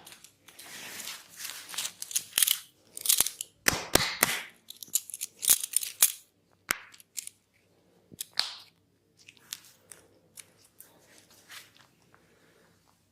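Massage sounds: a fast run of sharp cracks, snaps and slaps from hands working on hair and skin, dense and loud for about six seconds, then sparser, quieter clicks.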